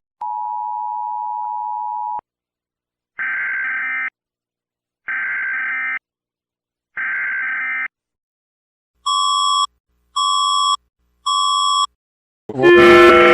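Emergency alert tones played in reverse: a steady two-second tone, three one-second multi-tone blasts about two seconds apart, then three shorter beeps about a second apart. Near the end a louder musical sound with many tones begins.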